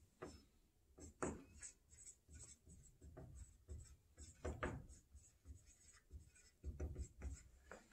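Dry-erase marker writing on a whiteboard: a run of short, faint, irregular strokes as letters are written.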